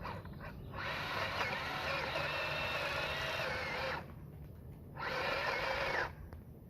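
Worx WG323 20V cordless pole saw's electric motor and chain running in two bursts: a whine of about three seconds starting about a second in, a pause, then about another second.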